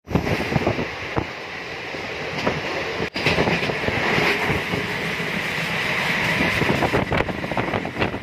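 MEMU passenger train running, heard at its open door: wheels rattling on the rails under a steady rush of wind. The sound drops out for an instant about three seconds in.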